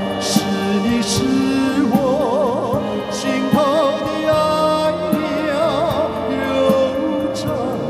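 A male voice singing a slow Chinese love song with wide vibrato over band accompaniment, with a few bright cymbal-like hits.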